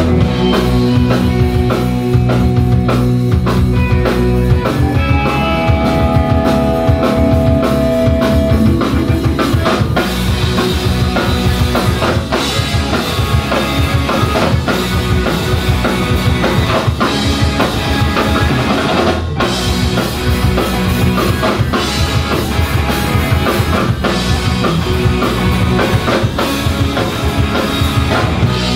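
Live rock band playing loud through a PA: electric guitars, bass guitar and drum kit. Held guitar notes ring over the first few seconds, and the drumming grows busier from about ten seconds in.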